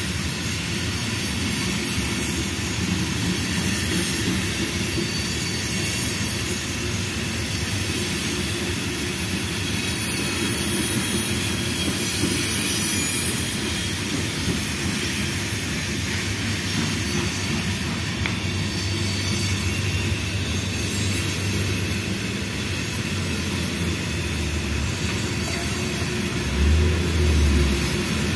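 Freight train of covered hopper cars rolling past at close range: steady rumble of steel wheels on rail under a continuous high squeal from the wheels. A deeper rumble swells in twice near the end.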